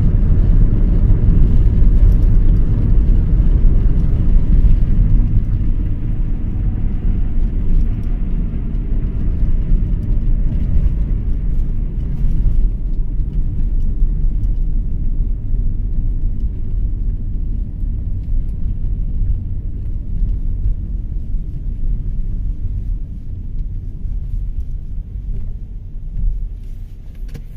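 A moving car's steady low rumble of road and engine. The rumble grows thinner about halfway through, then fades gradually as the car slows toward the end.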